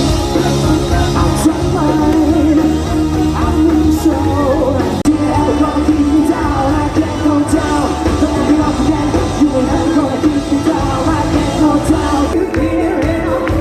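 A live band playing loud pop-rock with a singer, and yelling over the music.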